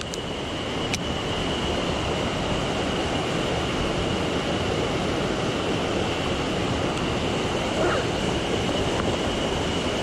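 Mountain stream water rushing steadily, an even wash of noise, with a thin steady high tone running through it.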